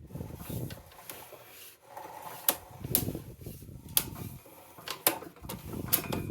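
Sewer inspection camera's push cable being fed by hand down the line, with a low rubbing noise and five sharp clicks about a second apart.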